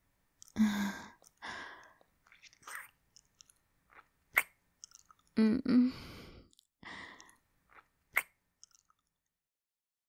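A woman making close-microphone kissing sounds: wet lip smacks and tongue sounds, with a few sharp smacks and short breathy hums between them.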